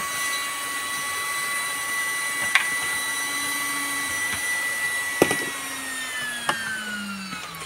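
High-pitched steady electronic whine from a homemade 8-MOSFET fish-shocker inverter running, with a few sharp clicks. Near the end the whine slides down in pitch.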